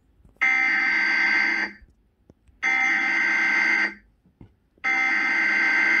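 Emergency Alert System SAME header on cable TV: three identical bursts of buzzy two-tone digital data, each a little over a second long with about a second between them. It is the coded header that opens a Required Weekly Test alert.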